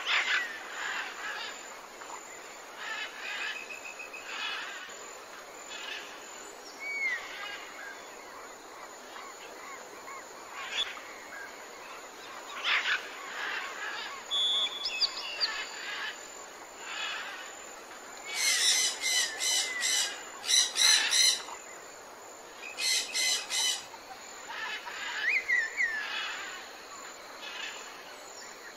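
Wild birds chirping and calling over a steady outdoor hiss: short whistled notes and chirps throughout, with a few loud, rapid stuttering call series a little past halfway.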